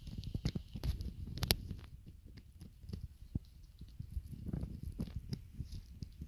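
Toy poodle puppy gnawing on a dog chew while teething: irregular wet clicks and crunches of teeth on the chew, busiest in the first couple of seconds with one sharp click about a second and a half in, then sparser.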